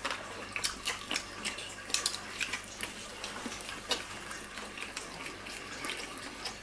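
Eating noises: irregular small clicks and wet smacks as people chew fried chicken off the bone.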